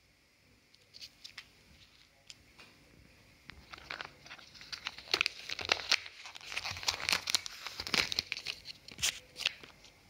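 Thin plastic seal and wrapping of a Kinder Joy egg being peeled and torn open by hand, crinkling. A few scattered crackles at first, then dense, busy crinkling from about three and a half seconds in.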